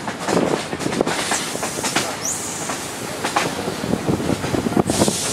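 Railway carriage wheels clattering over the rails of a moving train, heard through an open carriage window, with irregular knocks and rattles. A short high squeal rises about two seconds in, and a loud hiss sets in near the end.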